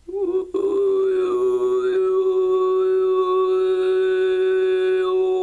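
A man throat singing in falsetto: one high note held steady, with a whistling overtone above it that slides up and down to pick out a melody. A brief break comes about half a second in, before the note settles.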